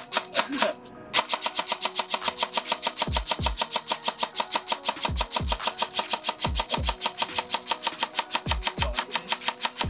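Lancer Tactical Gen 3 airsoft AEG firing: a few single shots, then about a second in a long unbroken full-auto burst of rapid, even shots. The gun is being overvolted on a 14.8 V 100C LiPo, far beyond what its MOSFET is rated for.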